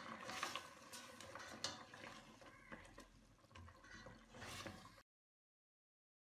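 Faint scraping and light clicks of a plastic spatula stirring mutton and spices against the side of a metal pressure-cooker pot. The sound cuts to dead silence about five seconds in.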